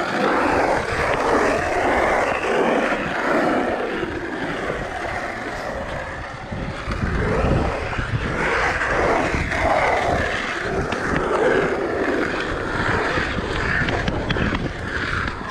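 Skateboard wheels rolling over the pump track's paved surface, a steady rumble that swells and eases as the board pumps over the rollers.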